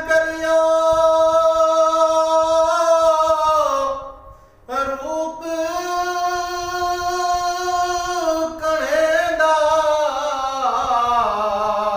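A man singing Punjabi Sufi kalam unaccompanied, holding long drawn-out notes: one note held steady for about four seconds, a brief breath, then another long note that wavers and steps down in pitch near the end.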